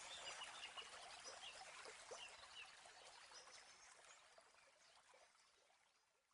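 Near silence: a faint wash of trickling and small chirps, fading away to nothing near the end.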